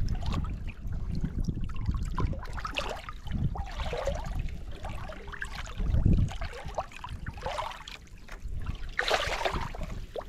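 Sea water sloshing and splashing at the side of a kayak as a thornback ray is held in the water by hand and released, with a louder splash about nine seconds in. A low uneven rumble of wind buffeting the microphone runs underneath.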